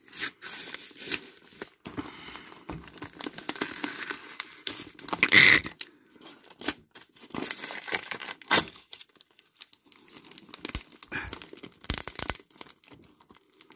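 Taped brown paper wrapping being torn and crumpled by hand, in irregular rips and crinkles, with one loud tear about five seconds in.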